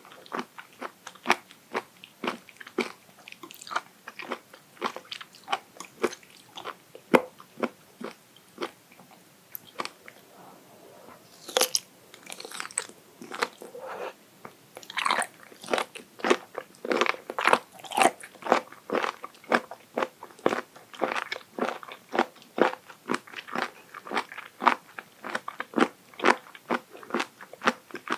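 Raw abalone sashimi being bitten and chewed, crunching and crackling in quick short crunches, about two or three a second. The crunches thin out for a moment around ten seconds in, then come thicker and louder.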